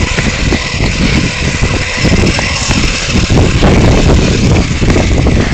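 Electric RC buggies driving on asphalt, an FTX Vantage towing a Maverick ION XB by a stick: motor whine and tyre noise under a loud, uneven rumble on the microphone.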